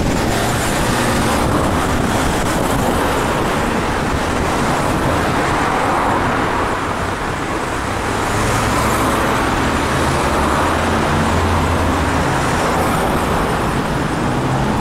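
Multi-lane road traffic with cars, vans and light trucks driving past close by: a steady wash of tyre and engine noise. A low engine hum swells about two-thirds of the way through.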